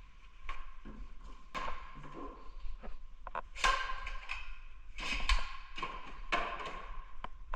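Irregular taps and clicks mixed with short scraping sounds, over a faint steady high tone.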